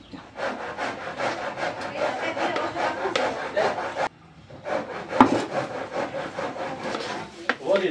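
A spoon scraping around a mixing bowl of cake batter in quick repeated strokes. It stops abruptly about four seconds in and picks up again, with one sharp knock about a second later.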